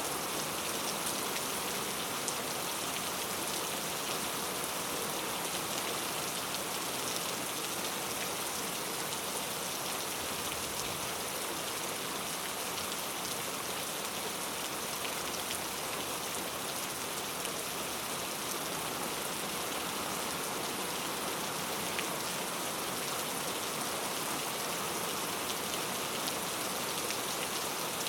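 Steady rainfall, an even hiss of many drops with faint scattered patters from individual drops striking a surface.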